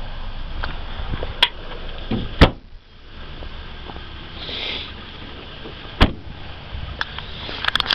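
A 2007 Toyota Corolla's trunk lid is slammed shut about two and a half seconds in, then its driver's door is shut about six seconds in: two sharp thuds, the first the louder.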